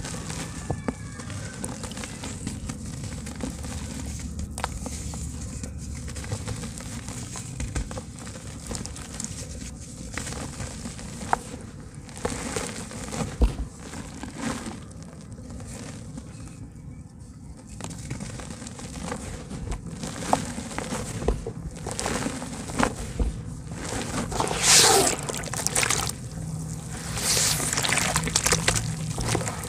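Soft red dirt crumbling in the hands and dropping into a bucket of water: gritty crumbling and crackling with small splashes. Near the end, hands sloshing and stirring the muddy water, louder.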